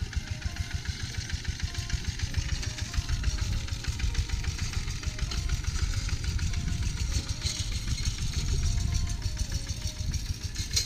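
Single-cylinder diesel engine of a two-wheel walking tractor running with a steady rapid beat as it pulls cage wheels through a wet rice paddy. It grows louder over the first half as it comes closer.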